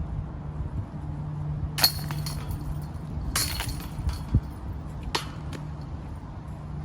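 Discs striking the chains of a disc golf basket: three sharp metallic clinks about a second and a half apart, the second ringing longest.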